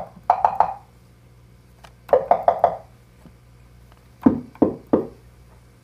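Make Noise 0-Coast synthesizer playing a percussive wood-block and tom patch. It gives short, dry, knocking hits in quick clusters of three or four, and the hits about four seconds in are lower and tom-like.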